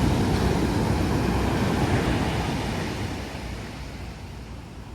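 Ocean surf: a big wave breaking, a heavy, low rushing that fades away over the last couple of seconds.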